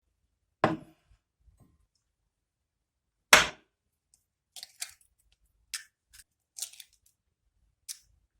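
Hard kitchen objects being handled: two sharp knocks a few seconds apart, then a run of lighter clicks and taps.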